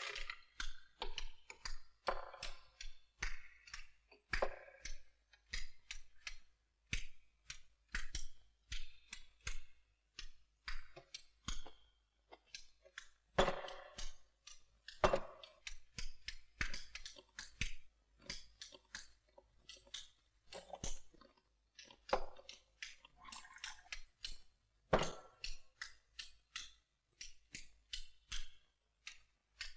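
Irregular clatter of crockery and chopsticks: sharp clicks and light knocks, several a second, with a few louder knocks that ring briefly, the sound of cups, dishes and a wine flask handled at tables.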